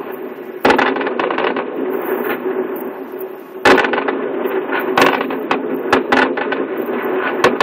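Aerial fireworks display: a series of sharp booms from bursting shells, the loudest about half a second in and again near the middle, with more bangs toward the end and crackling in between.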